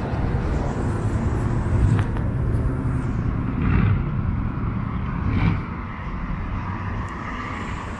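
City street ambience with road traffic running past, a steady low rumble that eases off about five and a half seconds in.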